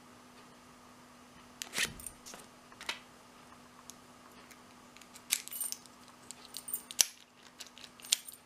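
Small keys jangling and clicking against a 40mm Abus My Sport padlock as the key is worked in it, in scattered metallic clicks starting about two seconds in and growing busier near the end, with one sharp click about seven seconds in.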